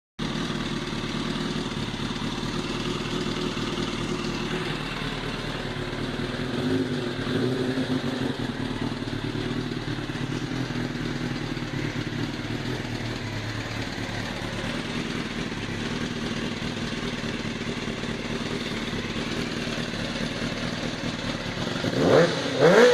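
Kawasaki ZX-11's inline-four engine idling steadily with a heavy rumbling noise, the fault being looked into. Near the end it is blipped up and down a few times.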